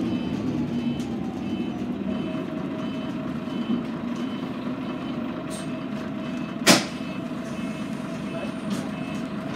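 Scania N113CRB bus's diesel engine heard from inside the cabin, winding down over the first couple of seconds as the bus slows and then running steadily at idle. Throughout, a high electronic beep repeats about twice a second, and one sharp clack is the loudest moment about two-thirds of the way through.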